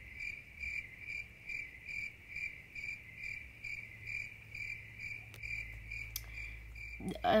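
A cricket chirping steadily: one high chirp repeating about twice a second, stopping near the end.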